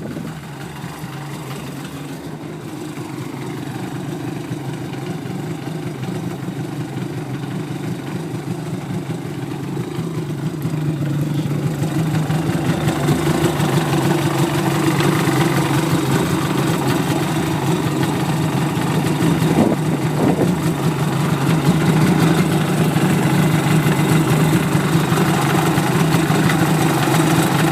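A 2002 Yamaha WaveRunner XLT's two-stroke engine running steadily just after a rebuild with new pistons and gaskets, growing gradually louder over the stretch; it runs smooth.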